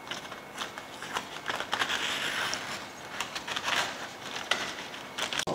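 Scissors snipping through a sheet of baking paper, with repeated short cuts and the paper crinkling and rustling as it is lifted and trimmed.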